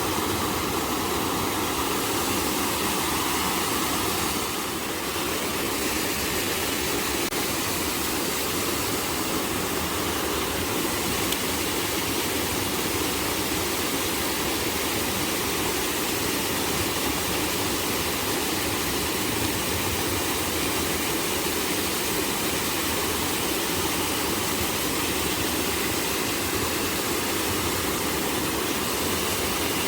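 Steady rush of water flowing in a small stream.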